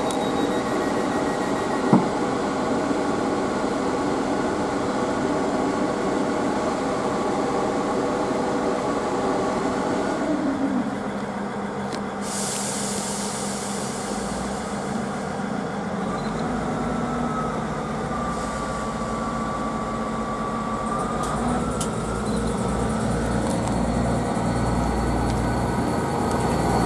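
Class 159 diesel multiple unit's underfloor Cummins diesel engines idling steadily. About 12 seconds in comes a brief burst of hiss, then the engines open up as the train pulls away: a deep rumble builds, with a whine that rises and then holds as the cars move off past the platform.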